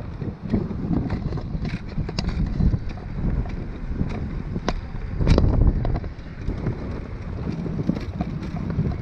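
Wind buffeting the microphone while riding a recumbent trike, over a steady low rumble of tyres on pavement, with scattered light clicks and rattles. A stronger gust comes about five seconds in.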